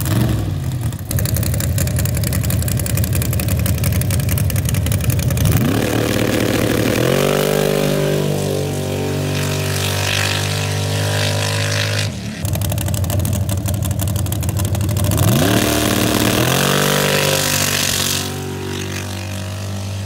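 Supercharged engine of a dirt drag truck running steadily at the line, then opened up to full throttle about six seconds in, its pitch climbing quickly and holding high as it pulls away. After a brief break near the middle, a second full-throttle pull climbs the same way, then eases off near the end.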